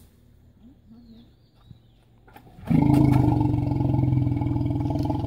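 Asian elephant giving a loud, long roar that starts abruptly about two and a half seconds in and holds steady, with a rough, fast throb.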